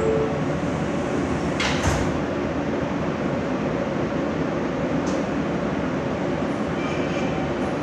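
Ride noise inside an R160 subway car under way: a steady rumble of wheels and motors, with sharp clacks from the track about two seconds in and a fainter one about five seconds in.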